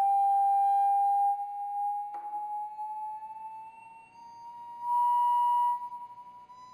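A pure, sine-like test tone slowly rising in pitch as it drives a sand-covered Chladni plate through its resonances; the sand shifts into a new pattern as the tone passes each one. The tone is loud at first, fades, and swells again about five seconds in, with a brief click about two seconds in.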